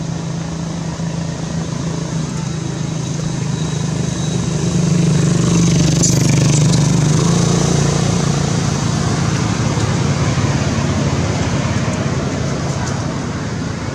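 Steady hum of a motor vehicle's engine running, swelling about five seconds in and easing off slowly.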